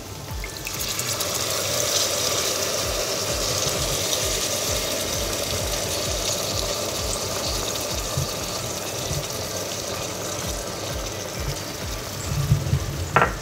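Tamarind juice poured into a pressure cooker of hot, fried mutton trotter (paya) masala, sizzling steadily as the liquid hits the pan. A short knock near the end.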